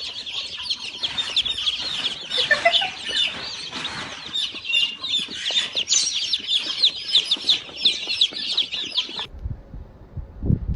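A crowd of birds, chicks or other fowl, peeping in a dense stream of short, high, overlapping chirps that cuts off suddenly about nine seconds in. A low rumble and a single thump follow.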